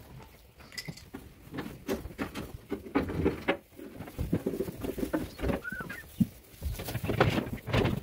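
A pen of sheep jostling and shuffling on straw, with irregular knocks and rattles against the metal hurdles.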